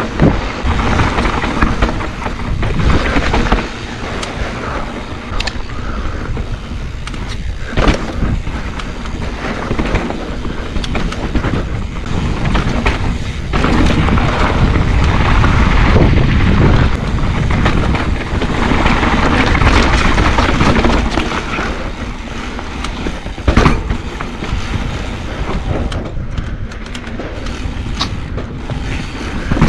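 Mountain bike descending dirt singletrack: tyres rolling and rumbling over the trail with the bike rattling, and sharp knocks as it hits rocks and roots, strongest about 8 and 23 seconds in.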